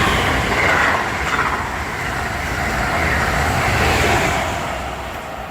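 Amtrak Acela high-speed train running through the station at speed: a loud, steady rush of wheels on rail and air, easing off a little near the end.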